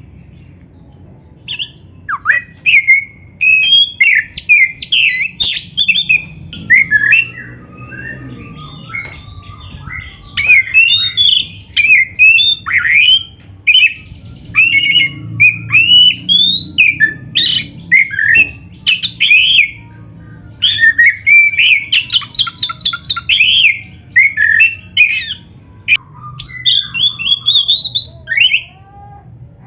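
Oriental magpie-robin singing a loud, rapid, varied song full of mimicked phrases, fast chirps and whistled glides delivered in three long bursts with short pauses between.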